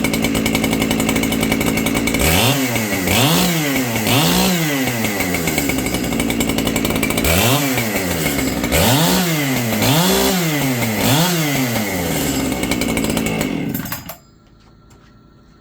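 Echo CS-7310P two-stroke chainsaw, just cold-started, idling and then revved up and back down several times in two bursts, settling back to idle between them. The engine cuts off suddenly about fourteen seconds in.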